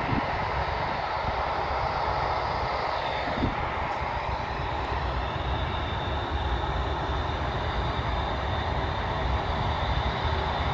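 Jet airliner engines running steadily, a broad rumble with a high whine that comes in about three seconds in; the nearest source is an Emirates Airbus A380 taxiing on its four engines.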